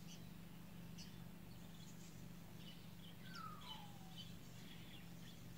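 Near silence: quiet room tone with a steady low hum and a few faint ticks, and about three seconds in one faint falling chirp.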